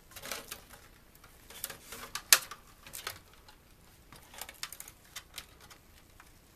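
Scattered light clicks and clatter of a tube TV's circuit board and plastic chassis frame being handled, with one sharp knock a little over two seconds in.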